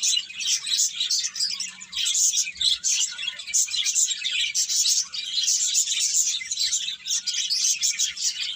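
Small birds chirping: a dense, continuous chatter of quick high chirps with no pauses.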